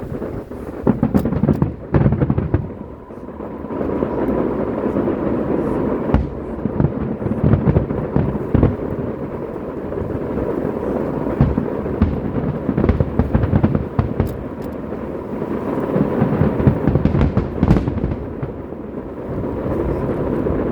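A fireworks display: aerial shells booming one after another at a rapid pace, with crackling bursts and a continuous rumble between them, loudest about a second in and again near the end.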